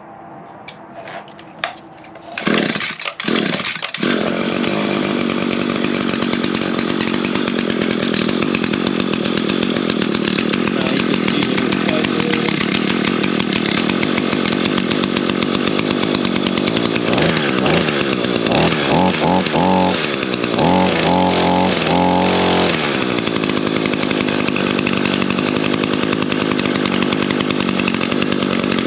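Two-stroke engine of an Echo gas string trimmer starting up: it catches about two and a half seconds in, sputters briefly, then runs steadily. About two-thirds of the way through it is revved in several short throttle bursts, then drops back to a steady idle.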